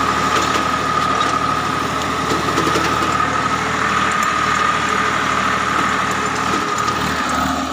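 Tractor engine running steadily as it pulls a bed planter through the field while sowing, with a steady high whine over the engine noise.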